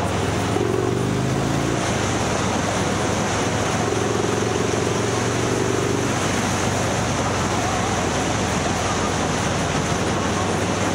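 Road vehicle under way: a steady engine hum over continuous road noise. The engine note shifts briefly about a second in, and a steadier pitched hum sits on top from about four to six seconds in.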